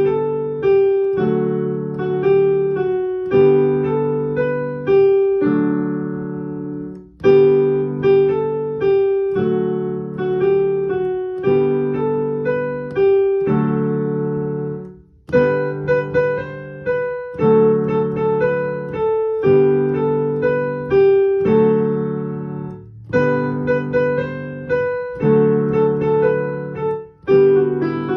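Piano playing a simple G major exercise with both hands: a single-note melody over left-hand G and D chords that change about every two seconds, with short breaks about seven and fifteen seconds in.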